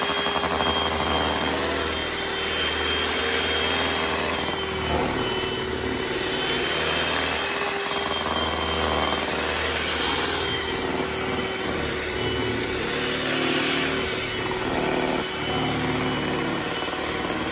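Electric hand mixer running steadily at speed, its beaters whipping cake batter in a stainless steel bowl, a motor whine over a dense whirring churn.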